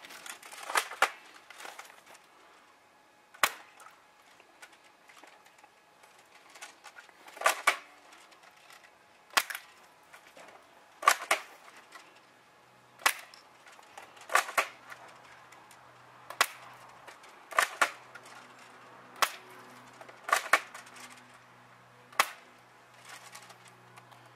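Airsoft AK rifle firing single shots, each a sharp pop, one or two seconds apart and sometimes in quick pairs.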